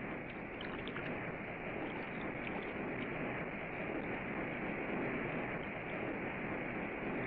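Steady rushing of river rapids, an even wash of white water with no breaks.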